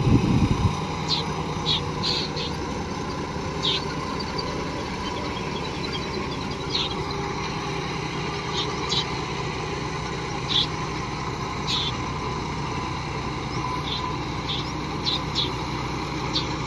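John Deere 5050 tractor's three-cylinder diesel engine running steadily under load, driving a rotavator through a flooded paddy field, with a louder low surge right at the start. Short high-pitched chirps sound now and then over the engine.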